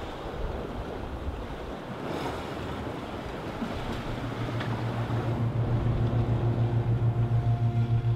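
Water rushing past a sailboat's hull with wind noise while under way. About four seconds in, a low, rapidly pulsing hum fades in and grows louder until it drowns out the water.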